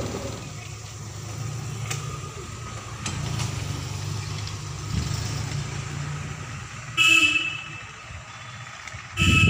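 A road vehicle's engine running with a steady low rumble, and a horn honking twice: a short blast about seven seconds in and another just before the end.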